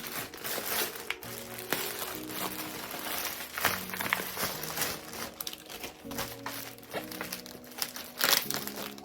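Plastic packaging crinkling and rustling in irregular bursts as a small parcel is opened by hand, over background music with held notes.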